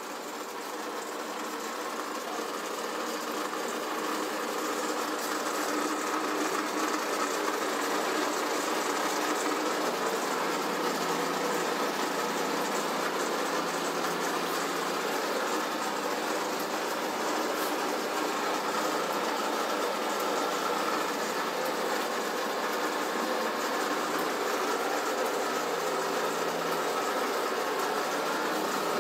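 Steady mechanical running noise that swells over the first three seconds and then holds level.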